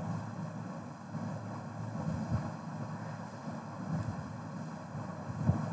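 Steady low background rumble, as of room or microphone noise, with a couple of soft low thumps, one about two seconds in and one near the end.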